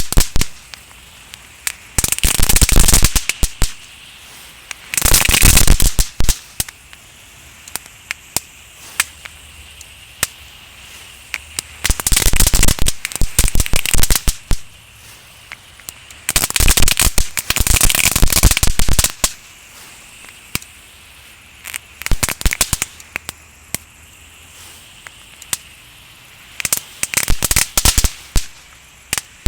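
Small crackling firecrackers (knetterrotjes) going off: about six dense bursts of rapid sharp crackling pops, each lasting one to two seconds, with scattered single pops between them.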